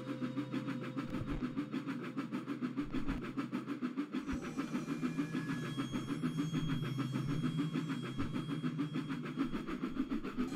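Small steam locomotive chuffing along with a quick, even beat as it pulls a train of wagons, over a steady low hum.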